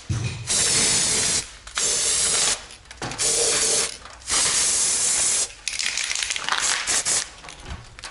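Aerosol can of copper grease spraying in four hissing bursts of about a second each, followed by a run of quicker, short rasping strokes.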